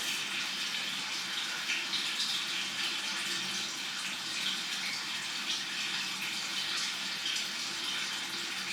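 Aquarium filter running: a steady splash and trickle of water, loud enough to carry over the room.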